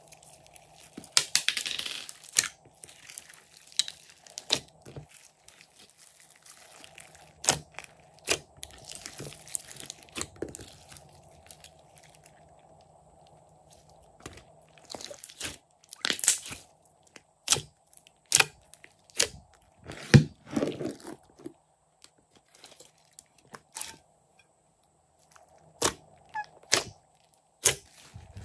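Glossy slime loaded with sequins and glitter being mixed, stretched and pressed by hand, giving sticky crackling and sharp pops and clicks in irregular bursts.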